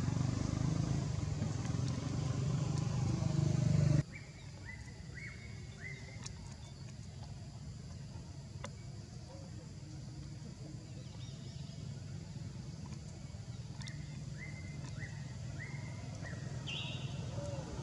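Steady low rumble of a motor vehicle engine for the first four seconds, cut off abruptly. Then quiet outdoor ambience in which a bird chirps in two short series of quick calls, a few seconds in and again near the end.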